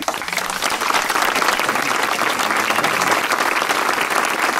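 A small crowd applauding, many hands clapping steadily.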